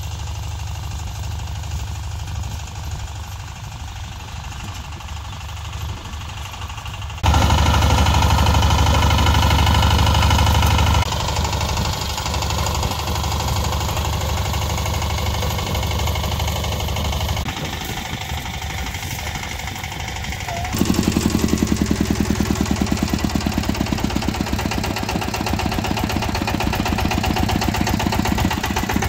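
VST Shakti walk-behind power tiller's single-cylinder diesel engine running under load as it tills the soil, with a rapid, even beat. The level jumps abruptly several times, loudest for a few seconds after about seven seconds in.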